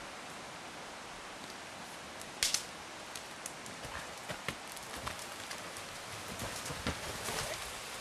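Footsteps through forest undergrowth, with dry twigs and branches cracking underfoot. One sharp crack comes about two and a half seconds in, then scattered snaps and rustles grow busier toward the end, over a steady hiss.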